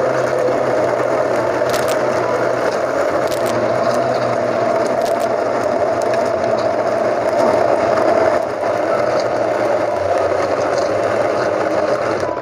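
Countertop electric blender running steadily while blending a papaya milkshake, with ice cubes dropped in through the lid opening clattering against the jar and blades. There are a few sharp clicks in the first several seconds, and the motor switches off abruptly at the very end.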